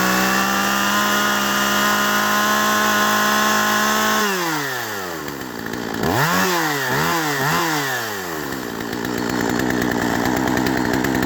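Poulan two-stroke chainsaw revving with its newly fitted chain: held at full throttle for about four seconds, dropping to idle, blipped three times in quick succession, then revved up again and held before falling off at the end. It is being run to show its throttle response and revs with the chain on.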